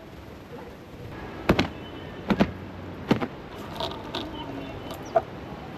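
Laundry being hung on a drying rack with plastic clothespins: a few sharp clicks and snaps spaced about a second apart, with fainter ticks between them.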